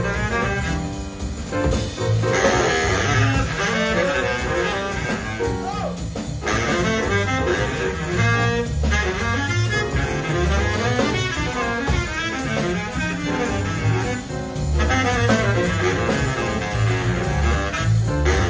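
Small jazz band playing a bebop tune: a baritone saxophone takes a solo over piano, double bass and drums.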